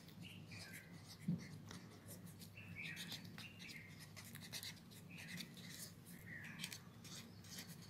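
Faint scratching of a ballpoint pen writing capital letters on ruled paper, in short separate strokes, with a soft tap about a second in.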